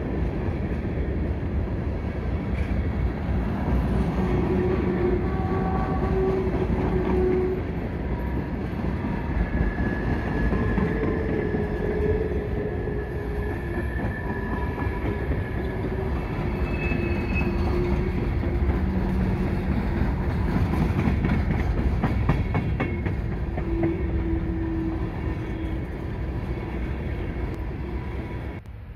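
CSX freight train cars, tank cars and then open-top hoppers, rolling past close by: a steady rumble of steel wheels on rail, with a run of clacks over rail joints about two-thirds of the way in and brief faint wheel squeals now and then.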